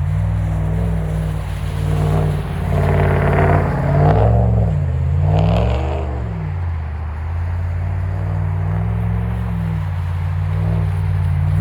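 Truck engine running, its revs rising and falling several times, loudest between about two and six seconds in.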